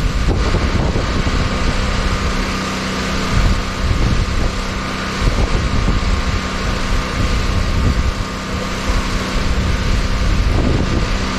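A steady mechanical hum with an even rushing noise behind it, likely wind on the microphone.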